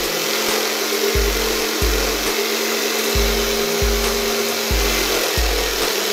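Table-mounted jigsaw running steadily, its upward-poking blade cutting through a thin fibreboard sheet fed by hand.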